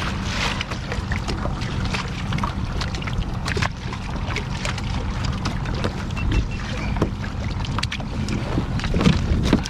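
Wind on the microphone and water washing around a kayak at sea, over a steady low hum, with scattered small clicks and splashes.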